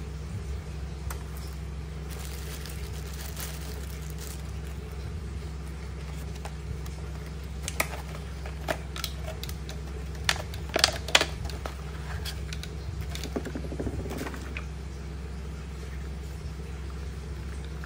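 Clear plastic blister packaging crackling and snapping as a wireless mouse is pried out of it, with sharp plastic clicks bunched together in the middle, loudest about ten to eleven seconds in. A steady low hum runs underneath.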